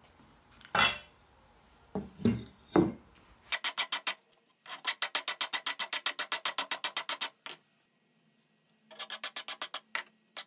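A few knocks, then a hand file scraping over a wooden handle blank in quick, even strokes, about five a second. The filing breaks off for a moment near the middle and then starts again.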